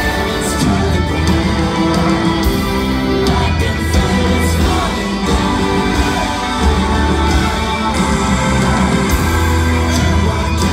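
Rock band playing loud live: electric guitar, bass and singing.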